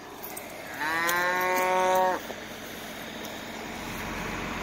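One of the cattle lowing once: a single steady moo about a second and a half long, starting about a second in.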